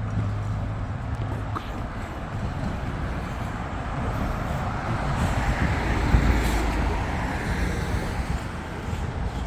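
A road vehicle passing, its tyre and engine noise swelling to a peak about six seconds in and then easing off, over a steady low hum that fades out early.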